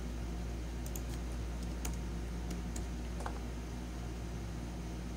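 Computer keyboard typing a short four-digit verification code: a handful of quick key clicks from about one to three seconds in, over a steady low hum.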